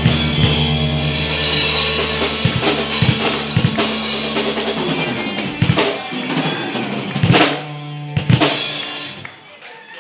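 Live rock band ending a song: drums and cymbals crash over a held chord, then three separate drum-and-cymbal hits come about six, seven and eight seconds in and ring out near the end.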